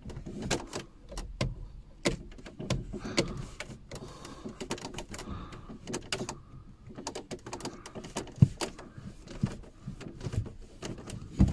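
Pedal of a VW Passat B6 pumped by hand a few times, giving a string of irregular clicks and knocks from the pedal and its linkage, while the freshly bled hydraulic system is checked for leaks. The pedal is light enough to press with a finger.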